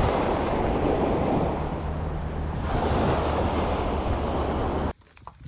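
Ocean surf washing onto a beach, with wind buffeting the microphone; the sound cuts off abruptly near the end.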